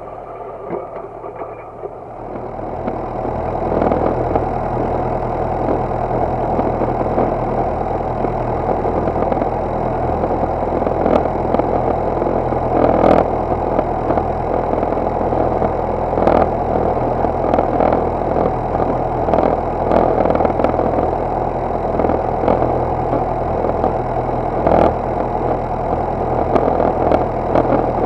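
Universal DT445 tractor's diesel engine running steadily under load while pulling a disc harrow through the soil, with sharp knocks now and then. The engine grows louder about two seconds in.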